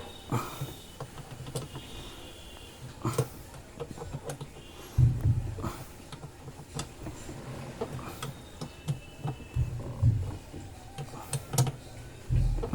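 Irregular clicks and metallic clinks of hand tools and parts being handled on a washing machine under repair, with a few dull thumps about five, ten and twelve seconds in.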